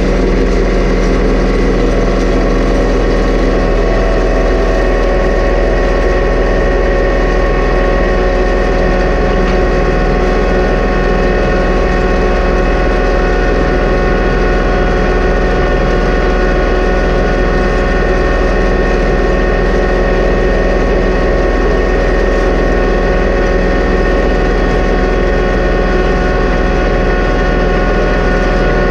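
John Deere 2038R compact tractor's three-cylinder diesel engine running at a steady speed while pulling a chain-harrow drag across pasture.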